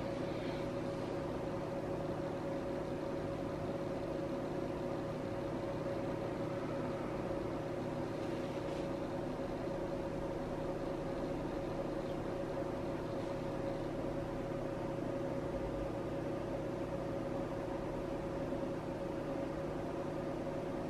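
A steady, unchanging hum made of several held low-to-mid tones over faint background noise.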